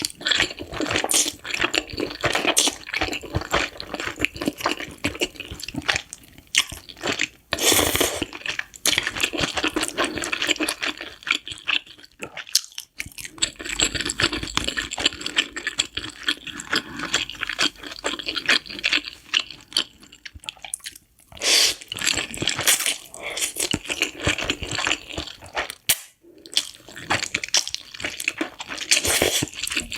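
Spicy noodles being slurped and chewed: an irregular run of wet smacks and squelches with a few short pauses.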